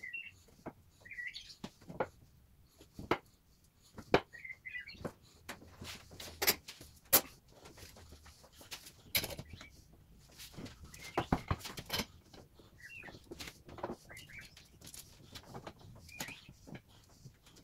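Scattered knocks and clatter as glued wooden strips for an end-grain butcher block are pushed together and steel pipe clamps are set across them. Short bird chirps come and go between the knocks.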